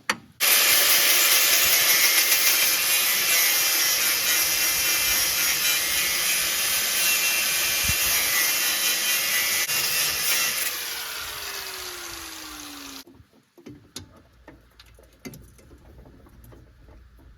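Angle grinder starting suddenly and cutting into a seized steel ball-joint bolt with a steady high hiss and whine for about ten seconds. It is then released, and its motor winds down in falling pitch before stopping.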